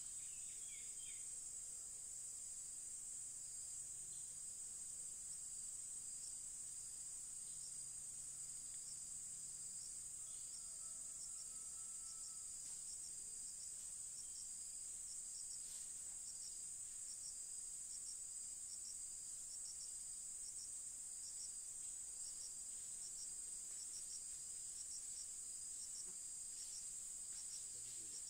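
Forest insects keep up a steady, high-pitched drone. A second insect chirps in regular pulses, about twice a second.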